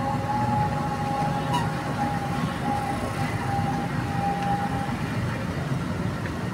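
Roadside traffic rumble, with a thin steady high tone held for about five seconds and stopping near the end.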